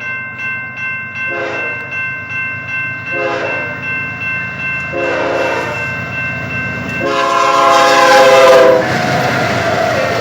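BNSF GE ES44DC diesel locomotive passing at speed and sounding its air horn in several short blasts, then one longer, louder blast near the end, over the rumble of the train.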